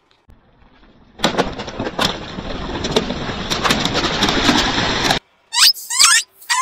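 Water-filled modelling balloons bursting under a car tyre: a run of sharp pops over a steady rush of spraying water for about four seconds, which cuts off suddenly. Then rubber toy balls being squashed give several short squeaks that rise and fall in pitch.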